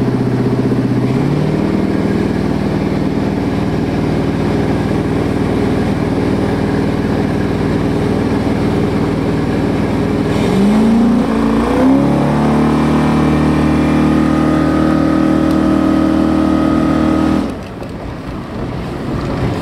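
1976 Sidewinder jet boat's 455 Oldsmobile V8 running hard at speed, with water and wind noise. The engine note steps up about a second in, climbs again about ten seconds in and holds steady, then falls off sharply near the end.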